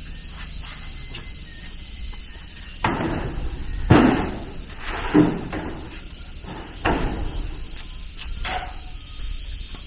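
A handful of irregular knocks and thuds, about five over several seconds, the second the loudest, each trailing off in a brief noisy smear.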